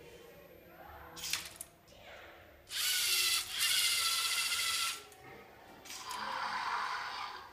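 Small electric motors of a LEGO Mindstorms-style tracked robot dog whirring as it turns on its tracks. A click comes a little over a second in, then a loud whir of about two seconds with a brief dip in the middle, and a softer, shorter whir near the end.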